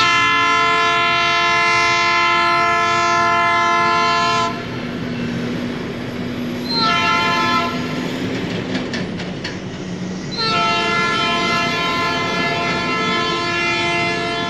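Train horn sounding three blasts: a long blast of about four and a half seconds, a short one about seven seconds in, and another long one from about ten seconds on, over a low rumble.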